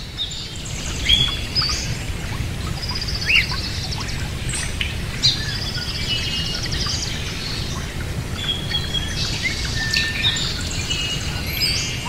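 Many birds chirping, trilling and whistling in quick, overlapping high calls over a steady low background rumble.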